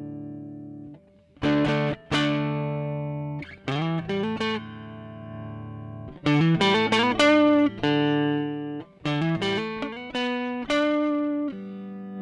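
Electric guitar played through a Fairfield Circuitry Barbershop overdrive pedal that is switched on. A held chord dies away, then picked notes and chords follow, with bent notes in a quicker phrase midway.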